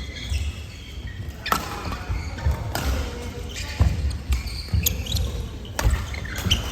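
Players' shoes thudding and squeaking on an indoor court floor during a doubles rally, with sharp hits about once a second.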